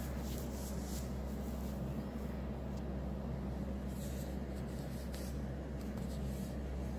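A steady low hum with faint, scattered scratchy ticks from a budgerigar moving and nibbling on a fabric-covered chest strewn with crumbled seed.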